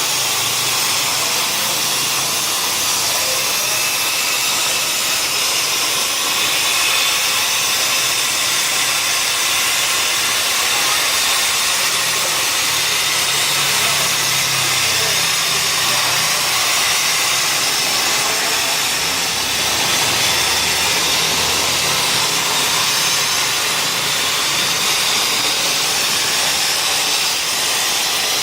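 CNC plasma cutter's torch cutting steel plate: a steady, loud hiss with no breaks.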